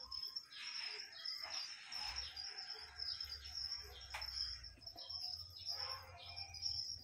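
Outdoor background of birds chirping over a steady, high-pitched insect-like drone, with a low rumble through the middle and one sharp click.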